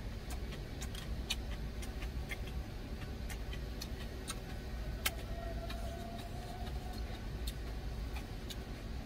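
Plastic spoon clicking and scraping against a plastic food container, scattered light clicks throughout, over a low steady rumble inside the truck cab.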